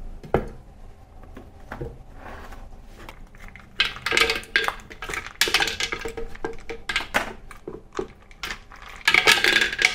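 Kitchenware being handled: a container and utensils knocked about, irregular clicks and clinks that get busier about four seconds in and densest near the end.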